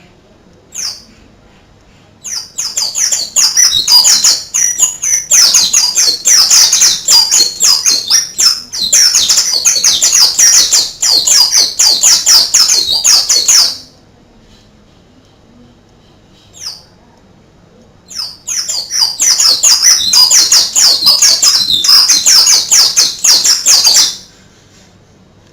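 White-eye (pleci) singing a fast, high, canary-like song in two long bouts of rapid notes, the first about eleven seconds and the second about six, each preceded by a single short call.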